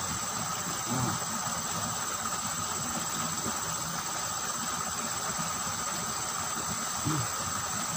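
Steady, high-pitched chorus of insects chirring, over a faint background hiss. Two brief low sounds break in, about a second in and near the end.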